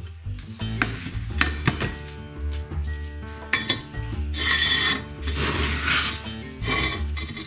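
A 1 cm thick steel plate and a threaded steel block knocking, clinking and scraping as they are handled and set on a wooden workbench: several sharp knocks in the first couple of seconds, then longer scraping stretches. Background music plays throughout.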